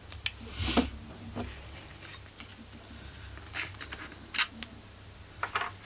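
Handling noise from a stripped Husqvarna 45 chainsaw crankcase being turned over in gloved hands: a short rustle under a second in, then a few scattered light clicks and taps.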